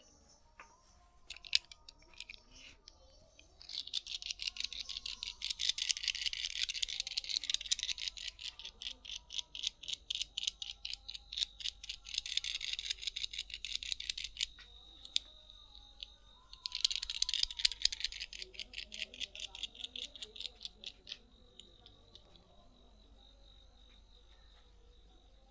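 Rapid, even tapping strokes of a barber's hands on a client's head during a head massage, several strokes a second, in three long runs with short pauses between.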